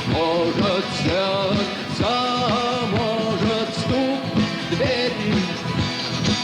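Rock band playing live, with a sung vocal line over drums and electric guitars.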